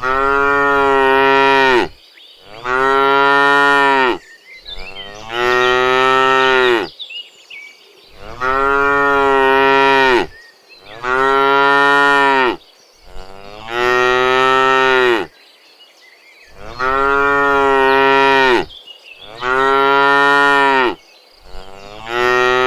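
Cows mooing: a run of about nine long, even moos, each about two seconds, with short pauses between them.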